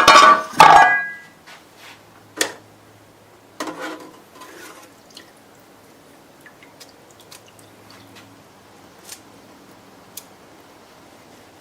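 Small metal knife parts handled at an ultrasonic cleaner: a loud clatter in the first second, then a sharp click, a short rustle and scattered small ticks and drips, over a faint steady low hum.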